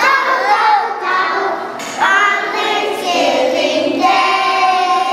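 A group of young children singing a song together, in short phrases, with a longer held note near the end.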